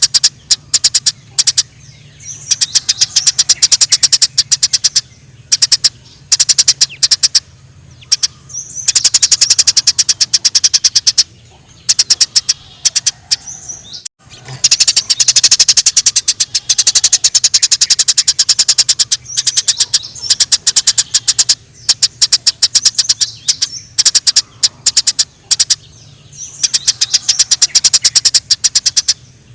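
Eurasian tree sparrows chirping in dense, very fast runs of sharp chirps, the agitated chatter of sparrows squabbling. The runs last one to three seconds with short breaks between them, over a low steady hum.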